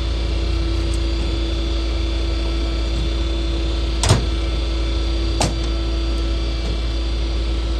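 Rollback tow truck's engine idling with a steady low hum, broken by two sharp knocks about four seconds and five and a half seconds in.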